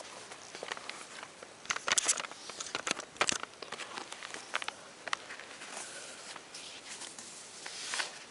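Nike Zoom Kobe 5 basketball sneakers being moved and handled on carpet: irregular scuffs, rubs and soft clicks, loudest in a cluster about two to three and a half seconds in and again near the end.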